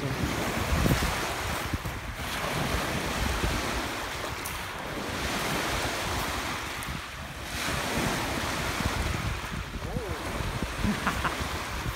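Small waves washing onto a gravel lakeshore, swelling and easing every few seconds, with wind buffeting the microphone.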